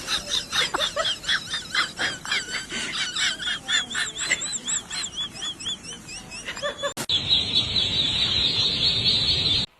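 A rapid run of short, high, arching chirps, like a small bird calling, for about seven seconds; then a sudden change to a steady hiss that lasts about two and a half seconds and cuts off.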